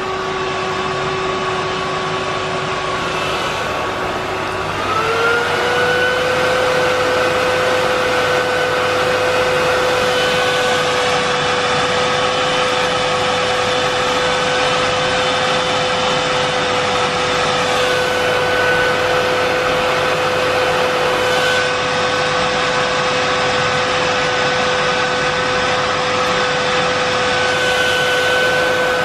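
Miele S8590 canister vacuum cleaner's 1200-watt motor running steadily with a strong whine. About five seconds in, the whine glides up in pitch, grows a little louder, and holds there.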